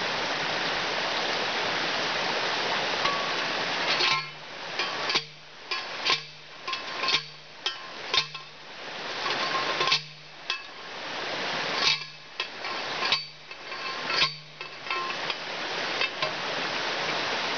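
Manual post driver pounding a steel T-post into the ground: repeated metallic clanks, each ringing briefly, coming one or two a second in short runs from about four seconds in. A creek's steady rush fills the first few seconds and the gaps between strikes.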